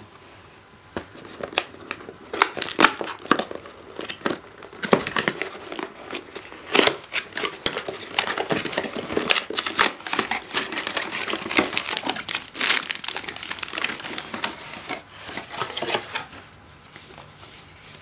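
A cardboard shipping box and its packing being opened by hand: a long stretch of crinkling, rustling and tearing with many sharp crackles, starting about a second in and stopping near the end.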